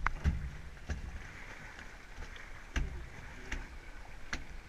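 Scattered knocks and clicks of handling on a small boat, over a low steady rumble.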